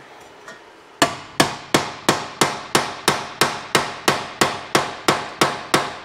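A metalworking hammer beating a sheet-metal floor-pan patch panel into a curve. The blows start about a second in and come steadily, about three a second, each with a short metallic ring.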